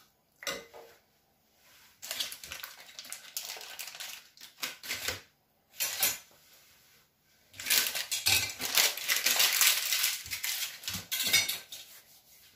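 Metal kitchen utensils clattering and scraping against metal pots, in two long spells of rapid scrapes and clinks, with a single knock between them.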